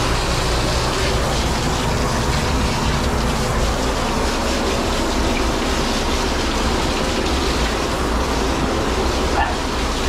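Water running steadily in a strong, even rush, as from a sprayer during a dog's bath, with a faint low hum underneath.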